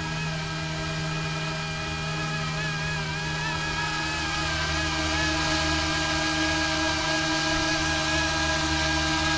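Electric RC scale Coast Guard Jayhawk helicopter in flight: a steady motor and rotor whine over a low rotor hum, getting louder about halfway through as it comes closer.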